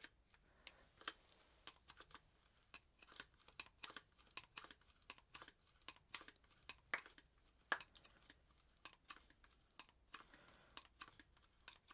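Faint, irregular clicks and crackles of a plastic SiliGun caulking gun and its caulk tube being handled with gloved hands.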